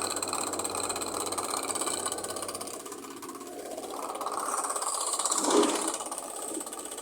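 Iced-up refrigeration unit running with a strange rapid rattling buzz, a noise the owner links to the unit being full of ice. It eases off about halfway through, then grows again.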